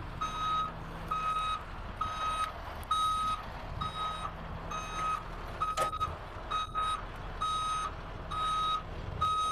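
Tow truck's back-up alarm beeping about once a second, one high tone each time, over the truck's steady low engine hum as it reverses with a car on its wheel-lift. A brief click about six seconds in.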